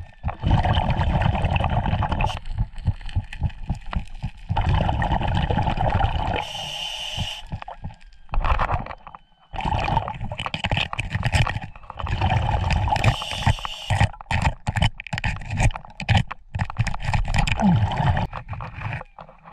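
Scuba regulator breathing heard underwater: bursts of exhaled bubbles gurgling for a couple of seconds at a time, with short hisses between them, about every six seconds. Sharp clicks and scrapes of a metal crevice tool and glove on bedrock run through it.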